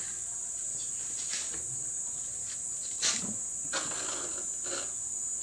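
A few short knocks and clatters as the upper door of a refrigerator is opened and a plate is set inside, the loudest about three seconds in. Under them runs a steady high chirring of crickets.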